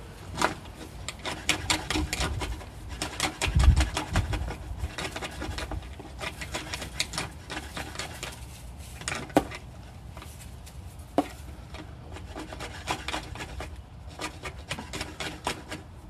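Rapid rubbing and scraping clicks in irregular runs, with a low thump about four seconds in and two sharper knocks later on.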